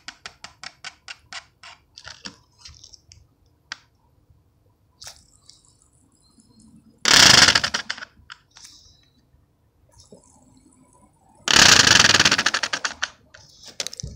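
Plastic fidget spinner spinning with its arms clicking rapidly against something: a fast train of clicks that slows and dies away over the first couple of seconds. About seven and twelve seconds in come two loud bursts of rapid clicking, each about a second long.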